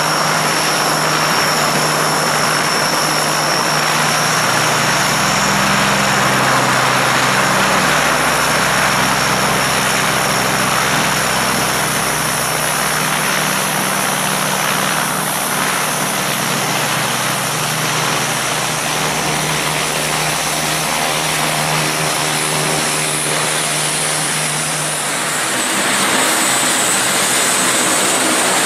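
Breguet Atlantic's two Rolls-Royce Tyne turboprops running on the runway: a steady high turbine whine over engine noise, with a low propeller drone. About 26 seconds in it changes to the different, higher whine of a PZL M28 Bryza's turboprops as it taxis.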